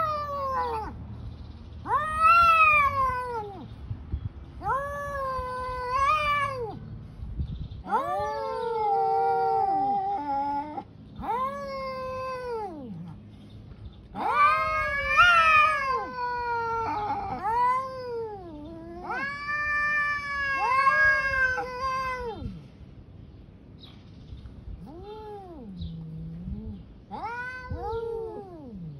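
Two domestic cats in a face-off trading long, drawn-out threat yowls (caterwauling), each call one to three seconds, rising and then falling in pitch; the calls come almost without a break, at times overlapping, then ease off into a few shorter yowls near the end. It is the warning yowling of a cat standoff before a fight.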